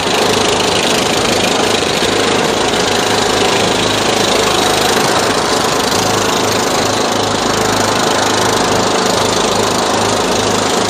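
Engines of two riding lawn tractors, one a Cub Cadet, running steadily under way as they drive across grass, a continuous drone with a throbbing low hum.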